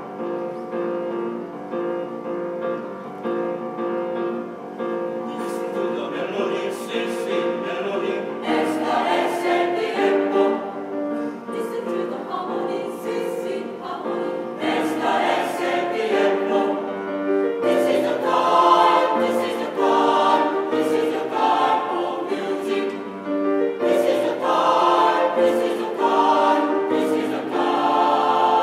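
Mixed choir of women's and men's voices singing in harmony, with sustained chords that change every second or so, growing louder about halfway through.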